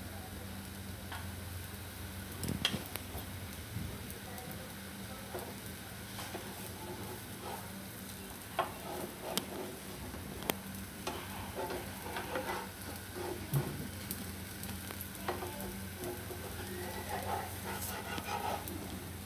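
Rava dosa sizzling on a nonstick pan over a full gas flame, with a spatula scraping and tapping against the pan now and then as it is worked under the crisping edge.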